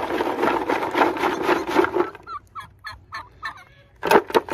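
Farm poultry calling: a fast rattling call for about two seconds, then a few short yelping notes, and louder sharp calls near the end.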